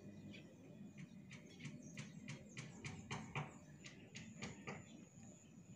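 Faint, scattered short chirps of small birds, with a thin steady high tone that joins about four seconds in.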